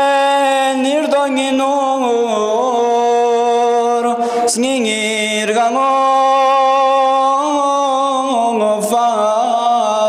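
A single unaccompanied voice chanting a devotional poem in long, held notes with ornamented pitch turns, pausing briefly about halfway through.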